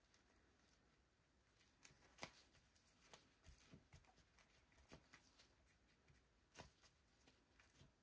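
Near silence, with a few faint clicks and rustles from gloved hands turning and handling a glass while spreading resin over it.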